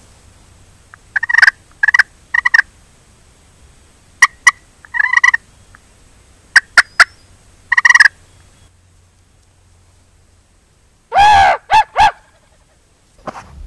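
Young wild turkey gobbler (jake) calling close by: a series of short sharp calls in ones, twos and threes, then a loud gobble about eleven seconds in.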